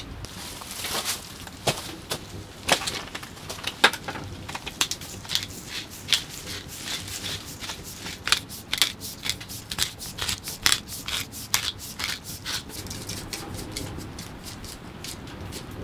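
Hands preparing food: rustling and crinkling with scattered sharp clicks and knocks, which thicken into a quick run of strokes, three or four a second, about eight seconds in.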